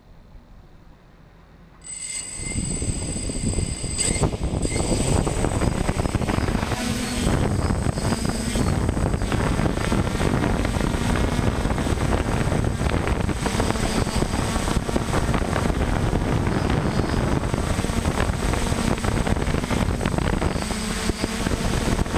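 DJI F550 hexacopter's six electric motors spinning up about two seconds in with a high whine, then its propellers running steadily through liftoff and climb, a loud even rush of rotor noise and prop wash.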